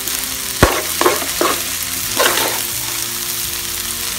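Vegetable fried rice sizzling in a hot kadai while a spatula stirs it. The spatula scrapes through the rice several times and knocks once sharply against the pan about half a second in.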